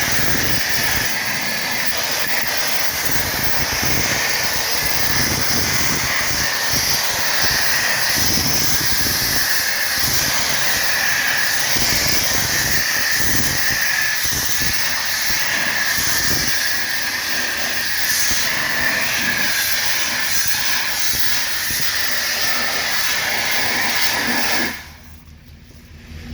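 Self-serve car-wash pressure washer spraying a steady hissing jet of water, cleaning algae, mildew and dirt off a boat. It cuts off suddenly near the end.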